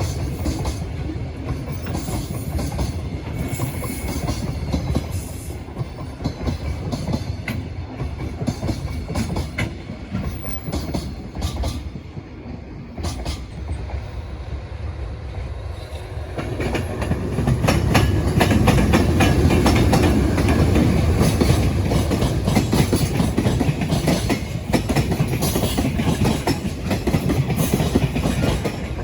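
Container freight train passing, its wagons' wheels clattering over the rail joints. About halfway through, the sound jumps to a second freight train going by, louder and with a denser clatter.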